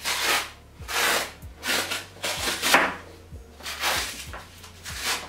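A felt protective sleeve being tugged and slid off a 27-inch iMac, giving a series of about six rustling swishes, roughly one a second.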